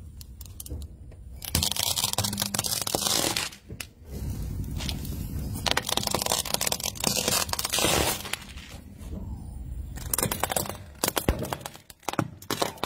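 Car tyre rolling over and crushing a bead-filled plastic Coca-Cola bottle: two long stretches of crackling and crunching, then a few sharp snaps near the end.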